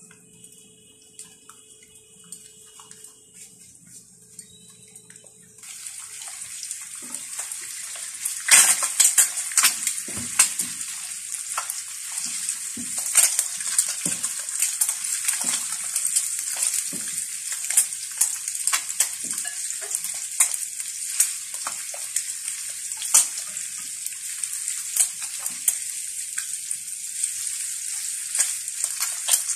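Egg and bacon frying in a nonstick pan: a steady, high sizzle that starts suddenly about five seconds in. Over it come repeated clicks and scrapes of a spatula and chopsticks turning the slices against the pan.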